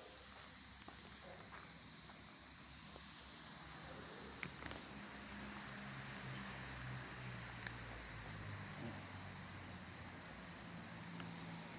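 Steady high-pitched insect chorus, with a low hum underneath and a few faint ticks.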